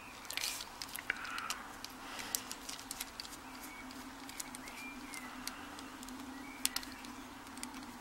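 Small screwdriver working the screws on the back plate of a Mul-T-Lock padlock core: faint scattered metal clicks and scrapes, with a steady low hum underneath.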